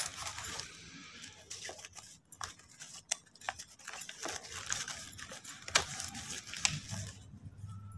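Paper rustling and scraping as a large stiff card is handled and slid over a plastic bag, with irregular small clicks and crinkles throughout.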